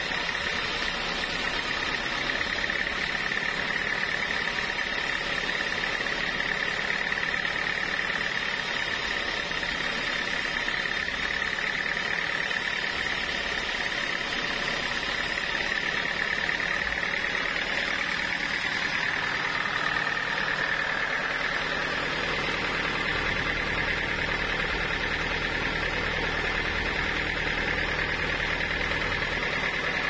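Homemade band sawmill running, its band blade cutting through a large block of teak wood: a steady, even sawing noise with a high whine held over it.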